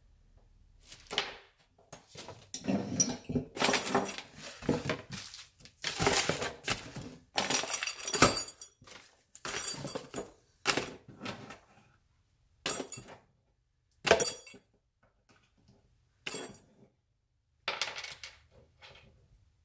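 Handling of small metal mounting hardware and packaging: a steel bracket, nuts and bolts clinking on a wooden table amid crinkling plastic bags and a cardboard box being handled, in irregular bursts that thin out into separate clatters in the second half.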